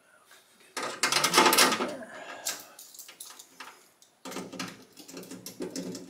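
Metal parts and tools clattering and rattling in irregular bursts, loudest a second or so in and busy again in the last two seconds, as hands work on a car door's lock hardware.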